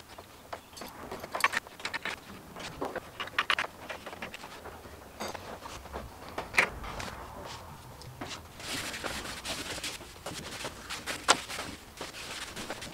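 Small screw clamps being handled and loosened on a wooden boat frame: scattered sharp clicks and knocks of metal and wood, with a few louder snaps. In the last third a rougher rustling joins the clicks.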